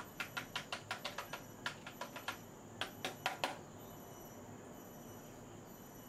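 A quick run of sharp clicks, several a second, in three bursts that stop about three and a half seconds in.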